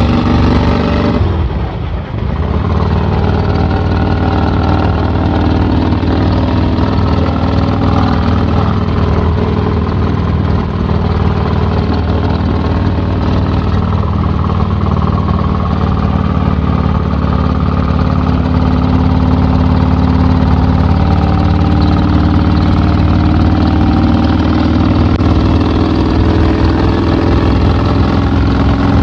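Vincent 1000cc V-twin motorcycle engine running on the road through an open straight-through exhaust. The sound dips briefly about two seconds in, then holds a steady note.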